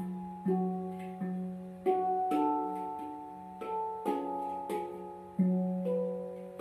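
Handpan played by hand with single notes struck in turn, each ringing on with a long decay over a sustained low tone, about one to two notes a second at a slow, unhurried pace.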